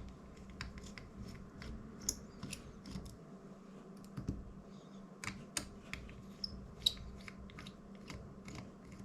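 Faint, irregular small clicks and ticks of a precision screwdriver and fingers working the tiny screws that hold the rotating axis on a DJI Mini 2 drone's plastic arm.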